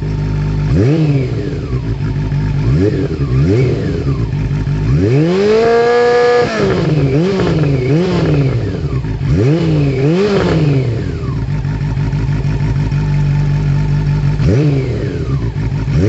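Honda CB400 Super Four's inline-four engine, heard through an aftermarket carbon slip-on silencer, idling and being revved in sharp throttle blips. There are three short revs early, one longer rev held briefly about five seconds in, then quick runs of blips, a steady idle, and one more blip near the end.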